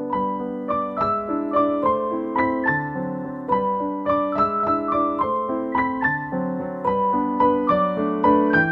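Background piano music: a steady run of single notes over lower held notes.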